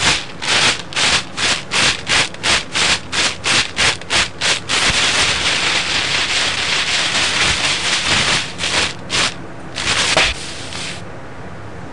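Quick back-and-forth rubbing strokes, about three a second, that blur into one continuous rasping rub about five seconds in. A few last strokes follow, and the sound stops about eleven seconds in.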